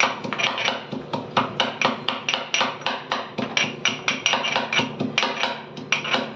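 Rapid metal clinking, about five sharp clicks a second, of a fork knocking against a frying pan as fried pomfret pieces are turned, over a steady low hum.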